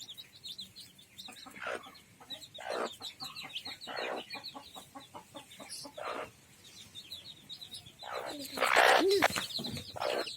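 Chicks peeping in a rapid run of short high chirps while a hen clucks, her calls loudest near the end.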